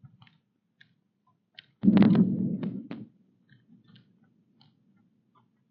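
Deer eating apples: scattered crisp crunching clicks, with a loud low rumbling thump lasting about a second, two seconds in.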